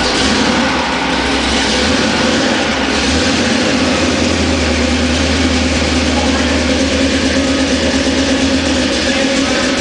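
Supercharged V8 in a hot-rod pickup running steadily at idle, loud and even, just after its first start in the truck.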